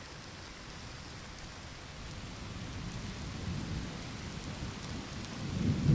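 Steady rain falling, with low rolling thunder that grows from about two seconds in and builds toward the end.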